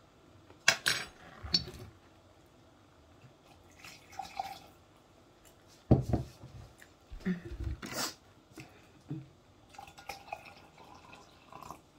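Tea and hot water poured from an electric kettle into a glass with a lemon slice, with several sharp clinks and knocks of glassware on the table, the loudest about a second in and again around six and eight seconds in.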